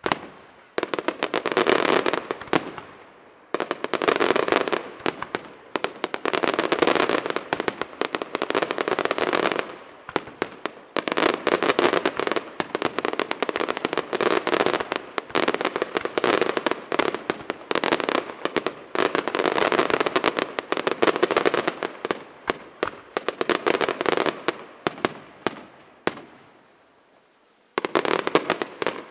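Aerial firework shells bursting into crackling stars: a sharp bang, then dense waves of rapid crackling pops that run for several seconds at a time. The crackling dies away about 26 seconds in, and a new burst starts shortly before the end.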